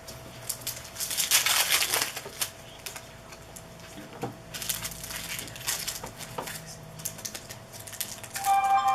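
Trading card pack wrappers being torn open and crinkled, with cards shuffled and tapped in the hands, in two crackling stretches. A short pitched squeak comes near the end.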